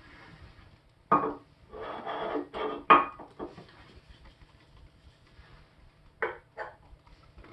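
Handling noises: a cluster of knocks and scraping about one to three seconds in, then two sharp knocks a little past six seconds.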